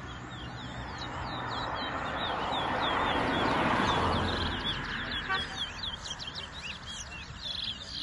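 Caged towa-towa finches singing quick chirps and whistles, over a low murmur of voices. A broad rushing noise swells to its loudest around the middle and then fades.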